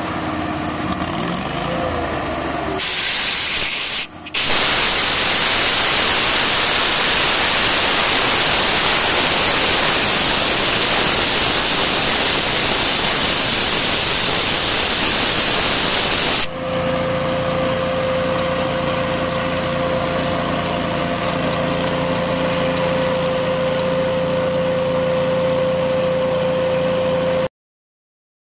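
Compressed air blasting from a long blow wand on a service truck's air hose: a loud, steady hiss that starts about three seconds in, cuts out briefly around four seconds, and stops when the valve closes at about sixteen seconds. A machine on the truck runs underneath, with a steady hum and a constant tone once the air is shut off.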